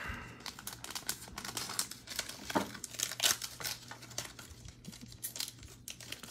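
Foil wrapper of a Panini Mosaic basketball card pack crinkling and tearing as it is handled and opened by hand, in a run of irregular crackles.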